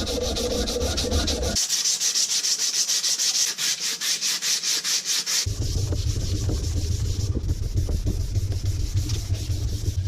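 Sandpaper rubbed by hand over wood in quick, even back-and-forth strokes, a rhythmic rasping hiss as the surface is sanded smooth. A low hum runs underneath and drops out for a few seconds in the middle.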